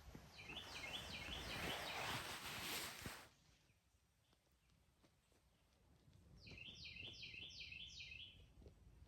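A songbird singing two short phrases of quickly repeated double notes, one near the start and one about six and a half seconds in. A steady rushing noise runs under the first phrase and stops abruptly about three seconds in.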